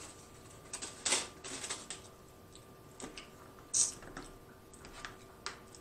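Irregular light clicks and short scrapes of a plastic fork against a plastic takeout container while picking up chopped salad.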